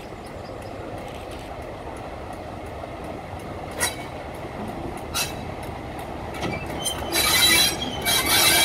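Class 31 diesel locomotive approaching slowly round a curve, its running heard as a steady rumble with two sharp clicks about four and five seconds in. From about seven seconds a loud, high-pitched wheel squeal builds as the locomotive draws near.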